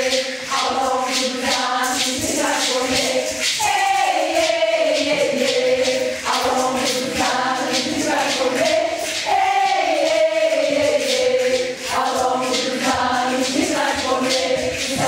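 A group of voices singing a chant together over a steady percussion beat.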